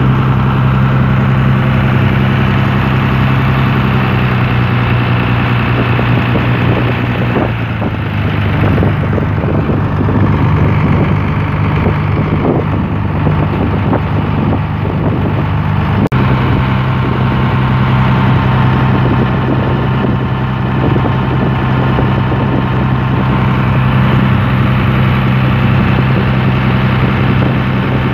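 A small harbour service boat's engine running steadily under way, heard from on deck, with water rushing along the hull. The engine note roughens for a few seconds from about eight seconds in and breaks off for an instant about sixteen seconds in.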